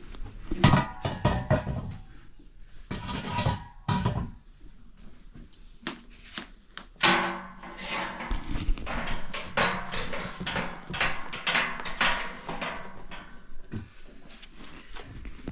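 Irregular household clatter: knocks, taps and scraping of things being handled, denser in the second half.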